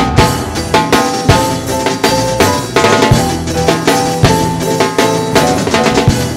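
Gospel band music: a drum kit keeps a steady beat under a melody of held notes.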